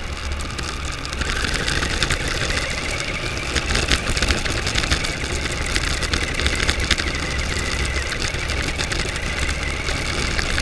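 Onboard sound of a battery-powered RC toy car driving over a rough road: its electric drive motor whines, starting about a second in and then holding steady, over a constant crackle and rattle of the small tyres and body on the gritty surface.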